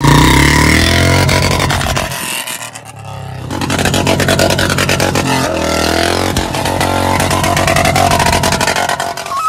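Royal Enfield Bullet 350's single-cylinder engine revving hard, easing off about two seconds in, then revving up again and running loud.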